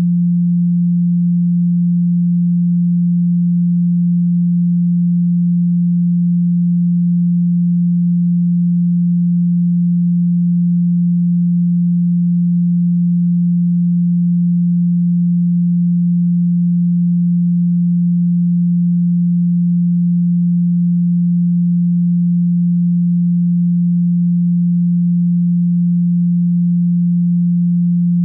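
A steady pure sine tone at 174 Hz, held at an unchanging pitch and level.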